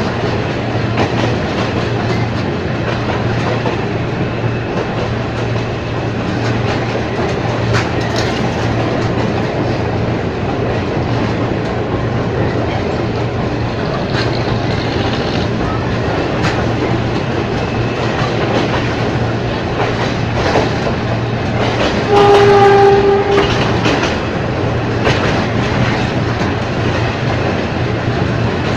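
Ex-JR 203 series electric multiple unit running on track: steady running noise with wheel clicks over the rails, and one horn blast of about a second and a half near the end.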